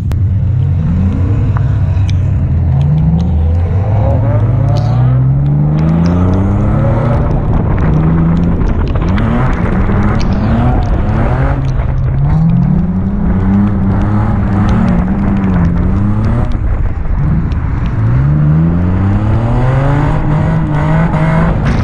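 Turbocharged 1JZ VVT-i inline-six in a Nissan 350Z, revving hard while drifting. The engine note climbs and drops again and again over the hiss of tyres on wet pavement.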